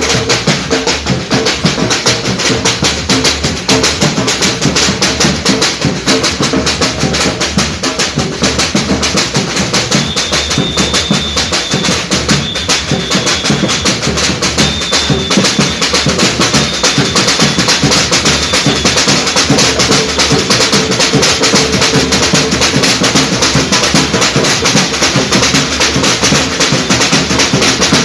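Batucada: a Brazilian samba drum ensemble playing a fast, dense, driving rhythm of bass drums and snares, loud and unbroken. A high thin tone sounds in short broken stretches around the middle.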